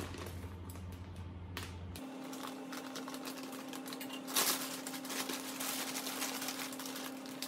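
Thin clear plastic packaging bag crinkling and rustling as a duvet is pulled out of it, loudest in a burst about four seconds in.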